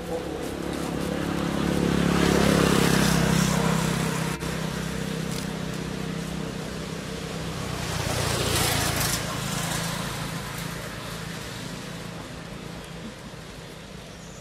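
A motor engine running, getting louder twice, about two seconds in and again around eight seconds, then fading away.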